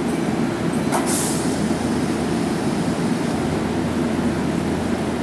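Keihan 2400 series electric train standing at the platform, its onboard equipment giving a steady low hum. About a second in comes one short hiss of air.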